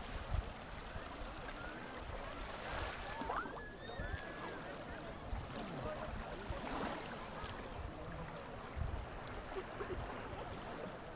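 Beach ambience: a steady wash of gentle surf and lapping water, with distant voices of people on the beach calling out now and then, most clearly about three seconds in.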